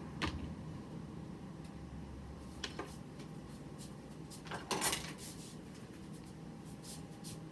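A few light clicks and knocks of kitchen things being handled on a counter, the loudest a short clatter of several knocks a little after the middle.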